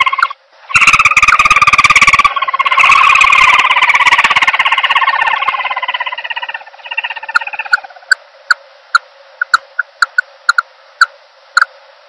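Recorded lure call of the chim ốc cao bird used for trapping: a loud, fast pulsing trill that drops in pitch and fades out in the middle, followed by scattered short sharp ticks about once or twice a second.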